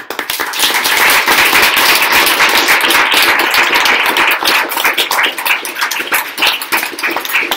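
A small audience applauding, a dense patter of hand claps that starts suddenly and thins out to scattered individual claps near the end.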